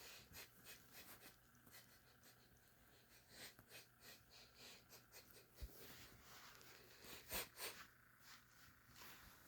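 A lion sniffing: a run of short, faint sniffs, with two louder ones close together near the end.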